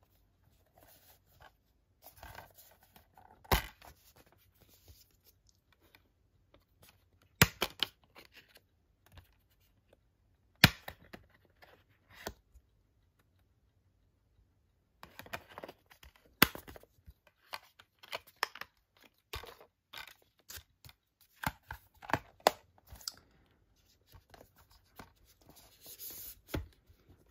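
A metal 4K steelbook case being handled, opened and slid back into its foam-lined box: a few sharp clicks and snaps, with scraping and rubbing between them.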